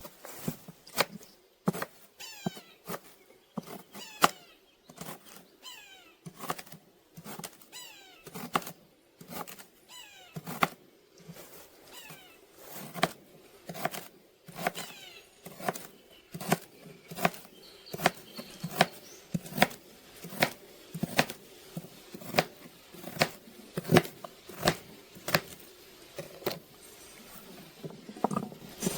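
Knife chopping fresh rhubarb stalks on a cutting board: sharp, short strikes, irregular at first, then settling into a steady pace of about two a second from about halfway through. Faint bird chirps sound in the background early on.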